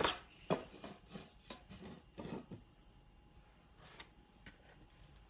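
Scattered light knocks and clicks of thin MDF box parts and a glue bottle being handled, several in the first two and a half seconds and a sharp tick about four seconds in.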